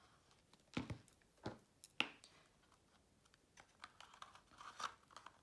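A few sharp clicks and taps of cardstock and a glue bottle being handled on a cutting mat, the sharpest about two seconds in, then faint paper rustling and light taps as a polka-dot paper cover is wrapped and pressed around a small cardstock box.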